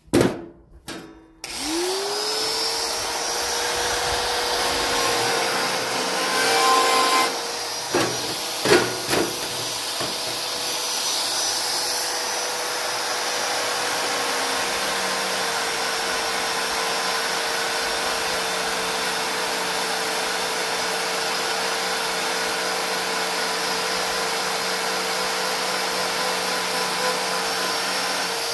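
An electric motor-driven tool starts about two seconds in, quickly spins up to speed, and runs steadily with a high whine and hiss. There are a few sharp knocks around eight and nine seconds in.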